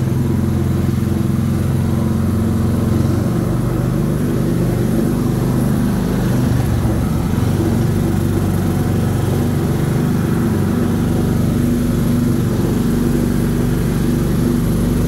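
Small ride-on race car running along its guided track: a steady motor hum with the rumble of its wheels, shifting in pitch a couple of times as its speed changes.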